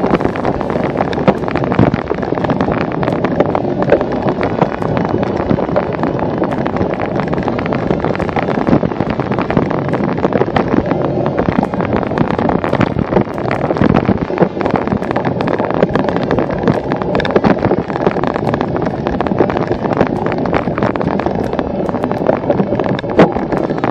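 Wind rushing over the microphone of a camera on a cyclocross bike riding a bumpy grass and dirt course, with frequent small knocks and rattles from the bike over the bumps.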